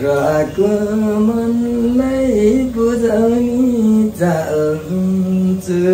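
A man singing slowly, drawing out long held notes that bend gently in pitch, with a short break about four seconds in.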